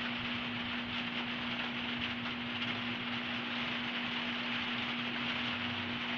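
Steady hum over an even hiss of room noise, unchanging throughout with no distinct events.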